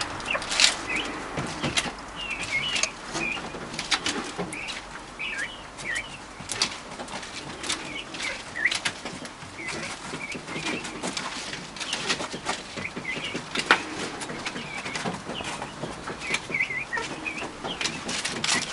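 Young black grouse giving short, curving peeping calls now and then while they peck and move about in fresh willow branches, with many rustles and clicks of leaves and twigs.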